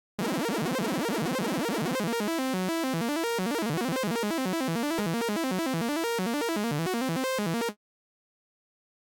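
Vital software synthesizer playing a fast, glitchy arpeggio, its notes stepping rapidly up and down in pitch. It plays for about seven and a half seconds, stops abruptly, and starts again briefly near the end.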